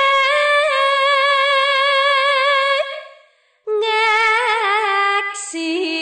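Solo female voice singing the classical Javanese tembang Sinom, unaccompanied, in long held notes with wide vibrato. A short pause comes about three seconds in, and then a second, lower phrase.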